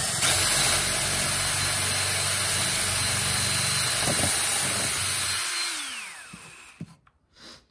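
Power drill with a twist bit boring a hole through a wooden speaker back panel, running at a steady high whine for about five and a half seconds, then winding down with a falling whine.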